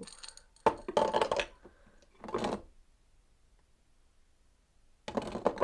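Loose buttons rattling inside a small glass jar as it is lifted and tilted: a sharp clink about half a second in, a rattle, and a second short rattle around two seconds in, then quiet.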